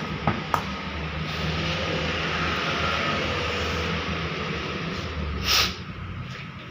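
A machine running with a steady low hum and rumble, two light clicks near the start and a brief louder rush about five and a half seconds in.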